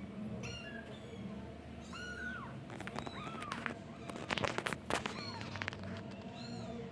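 Newborn kitten mewing repeatedly in short, thin, high-pitched cries that rise and fall. A cluster of sharp clicks and rustles sits in the middle, louder than the mews.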